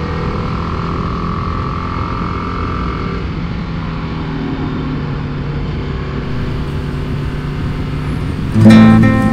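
BMW G310GS single-cylinder motorcycle engine running at a steady speed while riding, with road and wind noise. Guitar music comes in near the end.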